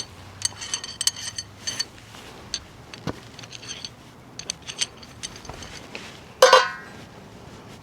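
Loose metal parts and tools clinking and ringing: a cluster of light clinks in the first two seconds, scattered clicks, then one louder ringing clank about six and a half seconds in.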